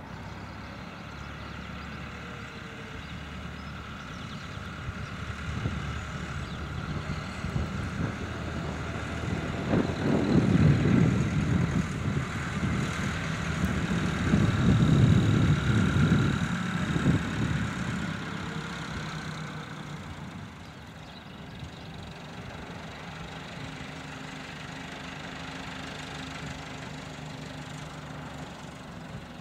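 Massey Ferguson 390 tractor's diesel engine running as it drives past at low speed, growing louder toward the middle as it comes closest, then easing back.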